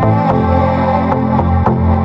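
Background music with a steady beat and sustained synth-like notes.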